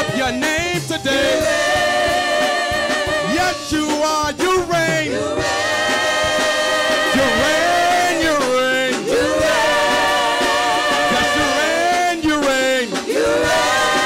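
Gospel worship team and choir singing a slow worship song in long held notes with vibrato, accompanied by hand drums.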